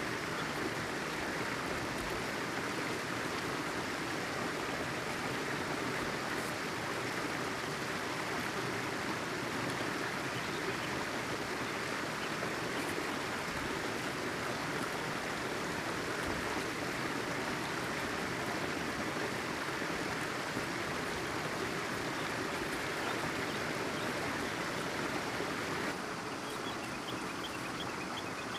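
Steady rushing of a flowing stream, an even water noise that drops a little in level near the end.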